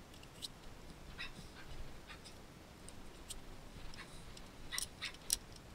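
Scattered light plastic clicks and handling noise from a toy Nerf blaster being loaded with foam darts, with two sharper clicks near the end.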